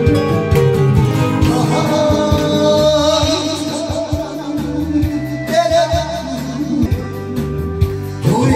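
A karaoke backing track playing, with a man singing along into a microphone. His voice comes in a couple of seconds in, with a wide vibrato.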